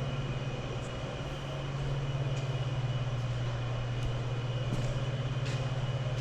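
Detroit Diesel 2-53 two-stroke diesel engine running steadily, a continuous low pulsing drone.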